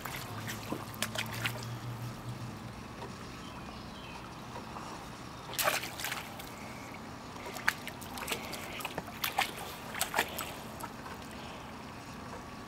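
A puppy pawing and splashing in a shallow plastic kiddie pool: irregular splashes and sloshing water, the sharpest a little past halfway.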